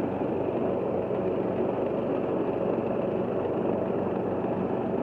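Riding lawn mower's 535 cc engine running steadily.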